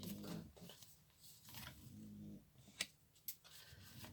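Quiet handling of tarot cards as they are laid out, with two sharp clicks near the end and faint low murmuring.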